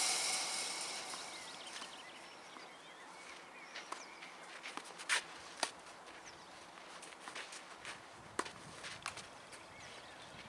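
Tennis ball being served and bouncing on a clay court: a few sharp, isolated knocks, the loudest about five seconds in, over faint outdoor background, with a hiss fading away over the first two seconds.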